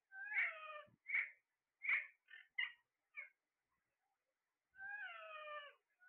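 Alexandrine parakeets calling: a long, slightly falling call, a run of five short calls, then after a pause a second long falling call near the end.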